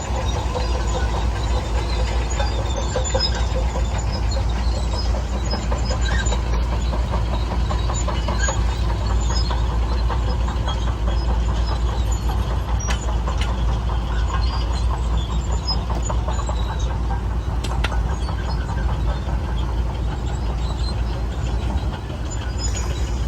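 Diesel engine of heavy earthmoving equipment (bulldozer or dump truck) running steadily with a deep rumble, with a few faint clicks and squeaks.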